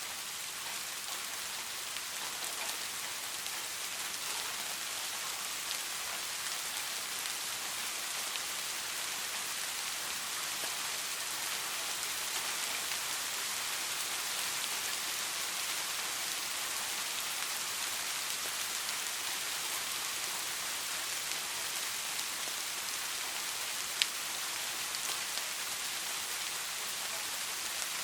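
Steady rain falling, an even hiss strongest in the higher range, with one sharp tick near the end.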